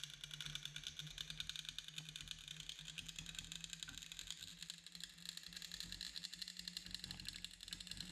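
Welding arc of a robotic-arm metal 3D printer crackling steadily as it fuses molten metal, a dense fast crackle over a low steady hum.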